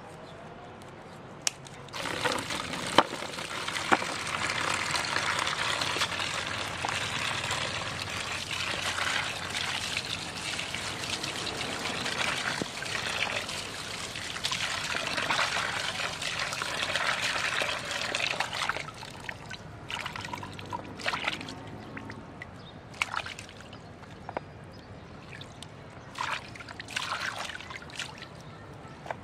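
A stream of water pouring steadily onto hands rinsing garlic over a plastic basin, stopping about two-thirds of the way in. After that, short intermittent splashes as green onions are swished about in the basin water.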